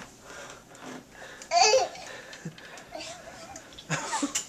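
A toddler's short babbling squeal with a wavering, falling pitch about one and a half seconds in, and a fainter babble near three seconds.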